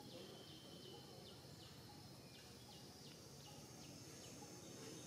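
Faint woodland ambience: a bird repeating short falling chirps, about two or three a second, over a steady high insect hum.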